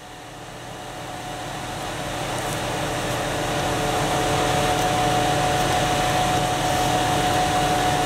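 Tractor-driven drum wood chipper running with nothing fed in: a steady whir with a constant high hum. It grows louder over the first four seconds, then holds level.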